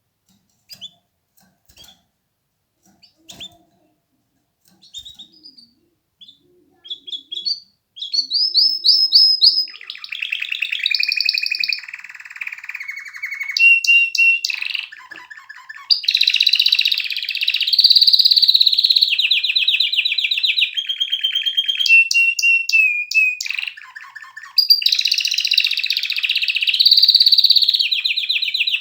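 Domestic canary singing: a few short, scattered chirps at first, then from about eight seconds in a continuous song of rapid trills and rolling repeated phrases, switching between higher and lower notes.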